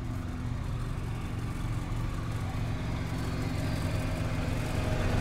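A motor vehicle's engine running with road noise while driving, a steady low hum that grows louder near the end.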